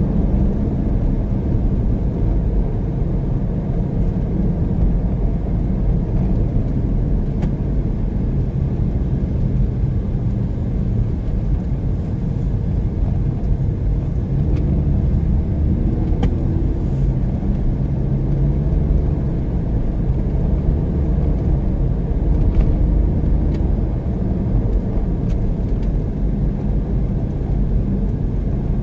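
Steady low rumble of engine and tyre noise inside a car's cabin while it drives along the road.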